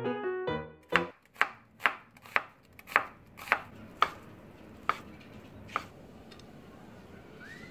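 A chef's knife slicing soaked shiitake mushrooms into strips on a wooden cutting board. There are about nine sharp knife strikes against the board at roughly two a second, spacing out near the end.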